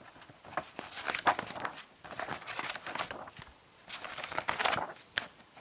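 Glossy paper pages of a board-game rulebook being handled and turned: a run of short rustles and crisp flicks.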